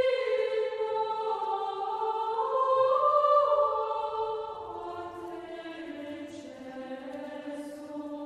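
Choir singing slow, sustained chords that step down in pitch and grow softer after about four seconds.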